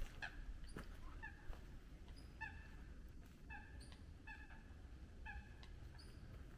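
A bird calling repeatedly in short notes, roughly one a second, each with several overtones. Faint footsteps sound on the path early on.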